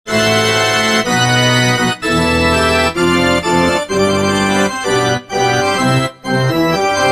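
Organ-like keyboard music: full, sustained chords that change every second or so, starting abruptly.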